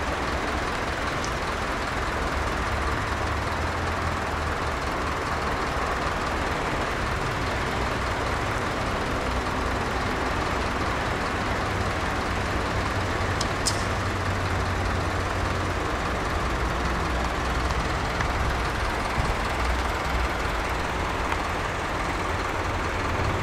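Steady road-traffic noise: cars and trucks running and passing on a busy road, with a low engine rumble underneath. A single short click about fourteen seconds in.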